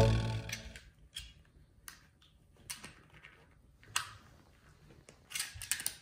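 Background music dying away in the first second, then scattered small clicks and rustles of a miniature schnauzer mouthing and tugging a black clothes hanger caught on it, the sharpest click about four seconds in and a quick run of clicks near the end.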